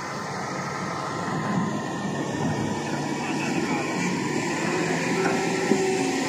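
XCMG wheel loader's diesel engine running steadily under load as the machine drives forward, pushing its lowered bucket through loose soil.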